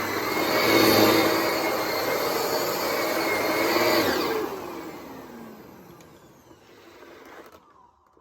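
Hoover Savvy upright vacuum cleaner running on carpet with a steady whine. About four seconds in it is switched off, and the motor winds down with a falling pitch until it is nearly silent.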